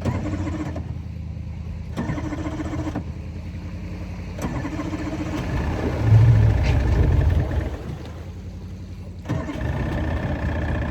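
Boat engine being started with several tries: it catches in bursts with short dips between, runs loudest about six seconds in, drops back, then picks up again near the end and keeps running.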